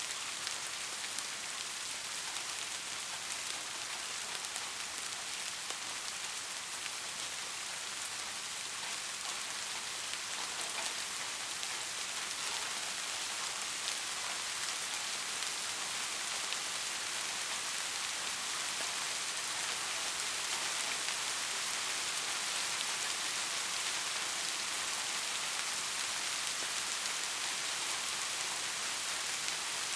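Soft steady rain falling, an even hiss with faint scattered drop ticks, growing slightly louder about two-thirds of the way through.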